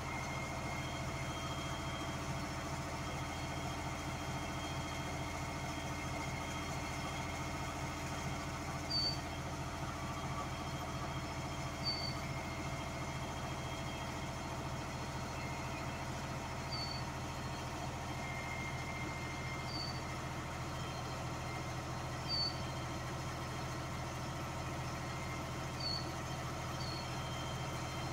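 US Jetting 4018 truck-mounted sewer jetter running steadily, a level mechanical drone. A few short high chirps sound over it now and then.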